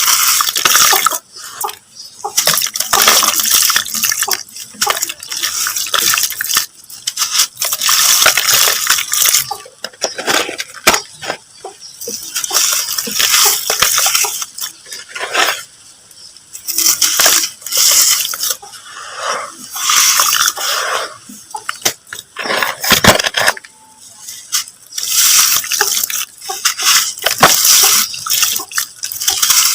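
Mud being crumbled by hand: repeated bursts of gritty crackling full of tiny clicks, each a second or few long, with short pauses between handfuls.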